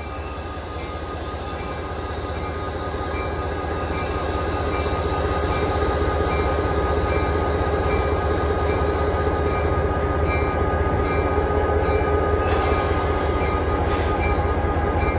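Santa Fe diesel locomotive #108 heard from inside its cab: the engine drone grows louder over the first several seconds as the engineer works the throttle, then runs steadily. A faint regular tick comes about every two-thirds of a second.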